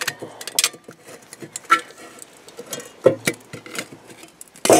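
Thin sheets of ice from the tent cracking and clinking as they are handled and broken, in irregular brittle clicks with a louder crack near the end.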